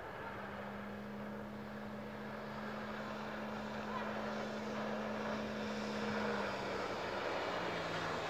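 Small motorboat's outboard motor running at speed, a steady hum that grows louder, its pitch dropping near the end.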